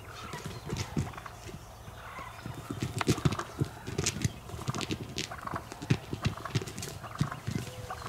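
Wild turkey toms scuffling: irregular thumps and flaps of wings and bodies, spaced unevenly.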